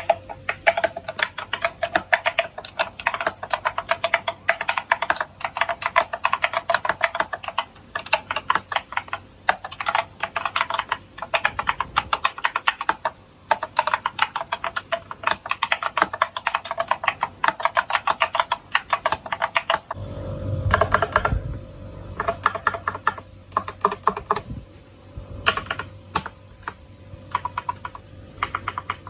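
Lofree 1% mechanical keyboard being typed on, a fast unbroken run of key clacks. About 20 seconds in, the typing turns sparser, coming in short clusters over a faint steady hum.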